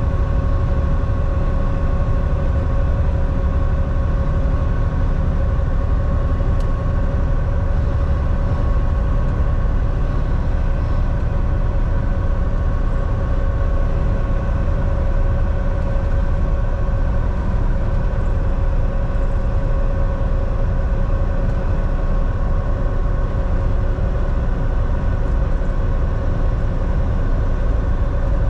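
Semi truck's diesel engine and road noise while cruising at a steady speed: a constant low rumble with a steady engine hum that does not change.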